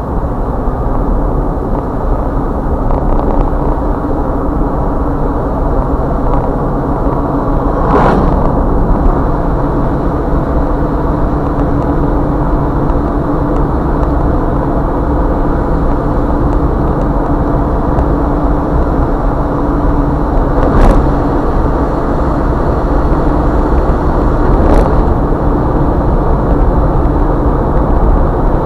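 Car driving at road speed on wet pavement, heard from inside the vehicle: steady tyre and engine noise with a low hum, broken by three brief thumps.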